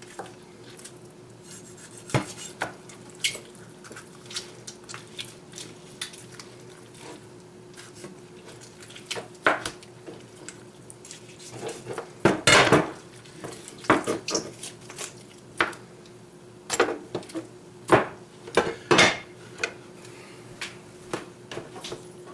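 Irregular knocks and clicks of a French billhook's steel blade against a plastic cutting board and a plate as a chicken is cut up and handled, with a cluster of louder knocks about halfway through. A faint steady hum sits underneath.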